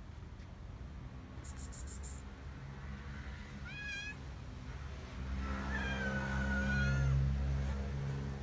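Cat meowing twice: a short rising meow about four seconds in, then a longer, drawn-out meow that falls slightly in pitch. Low steady background music comes in about five seconds in.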